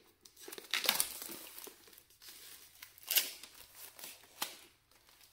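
Clear plastic shrink-wrap being peeled and pulled off a Blu-ray steelbook's cardboard fullslip, crinkling and rustling in bursts, loudest about a second in and again just after three seconds.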